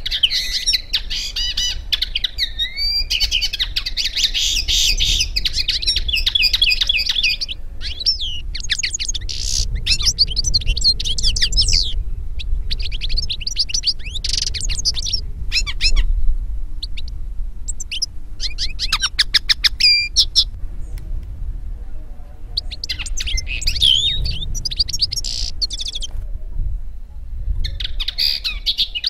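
European goldfinch and common linnet song: fast twittering and trilled phrases a few seconds long, broken by short pauses.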